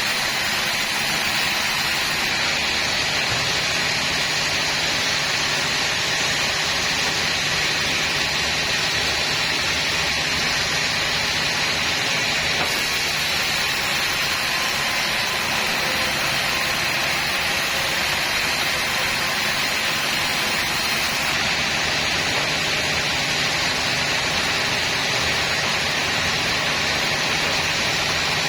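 Sawmill saw and its engine running steadily, an unbroken noisy drone with no pauses or changes in level.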